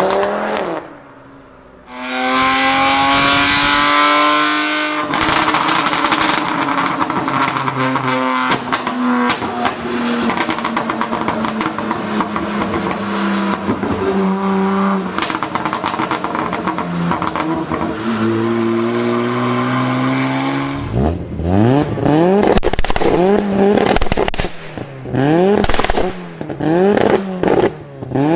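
High-performance car engines revving hard, with dense exhaust pops and crackles over the engine note. Near the end the throttle is blipped in quick rises and falls.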